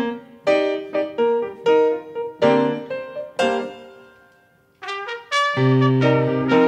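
Grand piano playing a slow ballad introduction, struck chords that ring and fade out about four and a half seconds in; then a trumpet comes in with long held notes over the piano.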